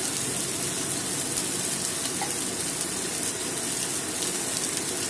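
Prawns and spice paste frying in oil in a steel wok: a steady sizzle with faint crackles.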